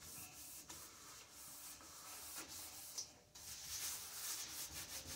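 Faint rubbing of a gloved hand wiping and scrubbing the soapy metal inside a stovetop, with a brief pause about three seconds in.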